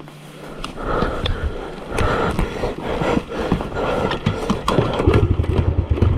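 Motorcycle being cranked over without firing cleanly: clattering and knocking, then about five seconds in a low pulsing engine rumble as it struggles to start.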